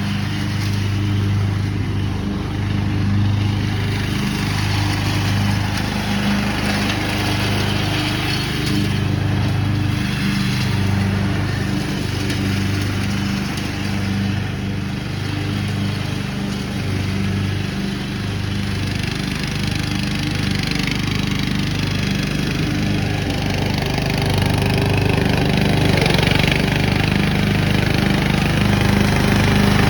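Craftsman riding lawn mower running steadily under load, its engine hum mixed with the rush of the cutting deck and leaf-collecting bagger; a little louder near the end.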